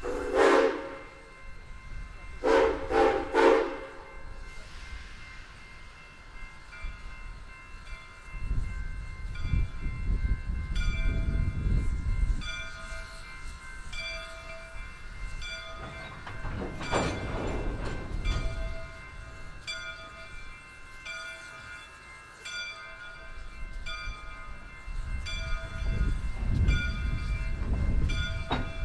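Soo Line 1003, an ALCO 2-8-2 Mikado steam locomotive, sounds its whistle: one blast at the start, then three short blasts a couple of seconds in. After that its bell rings steadily, about one stroke every 0.7 s, over the low rumble of the locomotive working past, which swells and fades.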